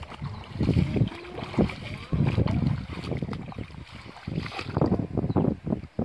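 Footsteps wading and sloshing through shallow floodwater and wet grass: a run of irregular splashing steps.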